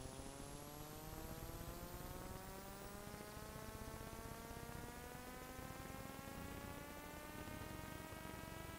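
A steady buzzing hum over hiss, its pitch rising slowly and evenly throughout. It cuts off abruptly near the end.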